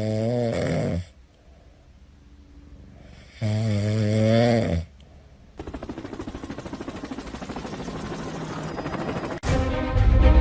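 A sleeping pet snoring: two long, drawn-out snores about three and a half seconds apart, then a quieter, fast rhythmic rattle. Music comes in near the end.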